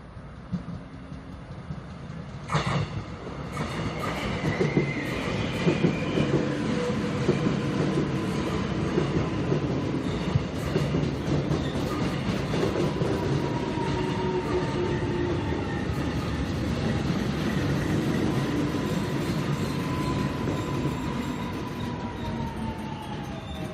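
Korail electric commuter train pulling in past the platform: the wheels rumble and click over the rail joints, with a sharp knock about two and a half seconds in. Its inverter motor whine slides steadily down in pitch as the train slows.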